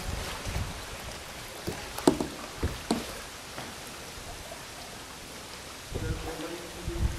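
Kayak paddle strokes in calm water: the blade dipping and pulling, with irregular small splashes and drips.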